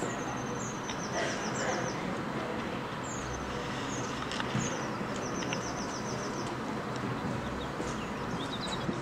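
Small songbirds singing high, quick chirping phrases, each a short run of notes stepping down, several times over a steady outdoor background hum.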